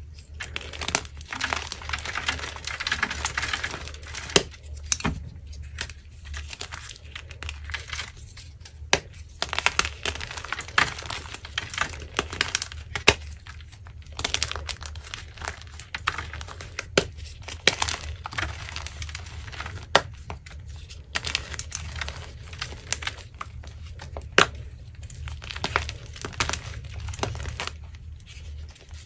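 Blocks of dyed gym chalk crushed and crumbled by hand: a dry, crumbly crunching with frequent sharp cracks as pieces snap apart.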